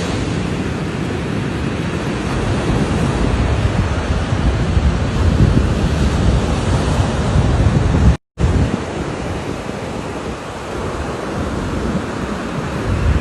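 Loud, steady rushing noise of wind buffeting the microphone, with no speech, and a split-second dropout to silence about eight seconds in.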